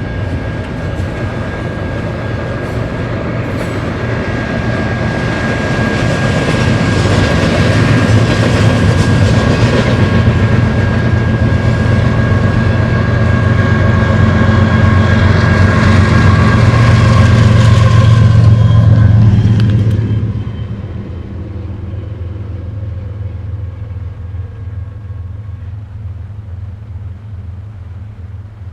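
BNSF container train's cars rolling past close by: a loud, steady rumble of wheels on rail with a thin high whine running through it. About 20 seconds in, the sound drops off sharply as the last car clears, leaving a fading rumble.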